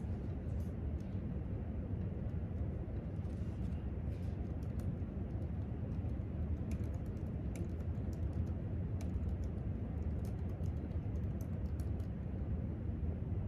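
Typing on a laptop keyboard: scattered, irregular light key clicks, busiest in the second half, over a steady low rumble of room background.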